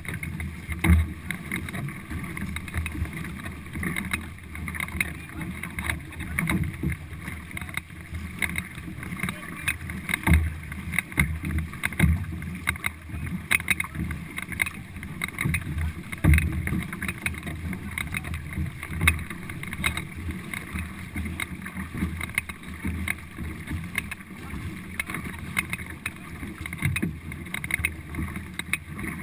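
Water rushing and splashing along the hull of a four-person racing canoe under hard paddling, with the slosh of paddle strokes. Irregular low rumbles of wind buffet the microphone.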